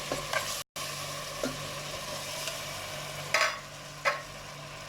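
Chicken pieces sizzling in hot oil with sautéed garlic, onion and ginger: a steady hiss, with a few sharp knocks of a utensil against the pot, the loudest two about three and a half and four seconds in. The sound cuts out for an instant near the start.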